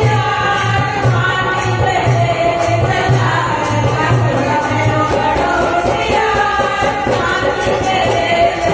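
A group of women singing a Languriya folk devotional song into microphones, two lead voices carrying the tune, over a steady percussion beat with hand-clapping.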